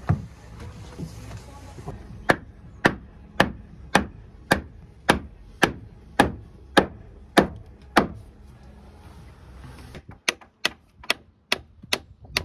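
Hammer blows on timber: a steady series of about a dozen strikes roughly two a second, then, after a break, a quicker run of slightly quieter strikes as a claw hammer drives a wooden peg into an old roof-frame beam.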